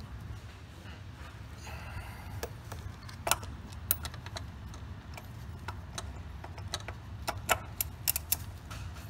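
Scattered sharp metallic clicks and clinks of a ratchet and socket tightening the oil filter housing cap on a 3.6L Pentastar V6, several coming in a quick run near the end, over a steady low hum.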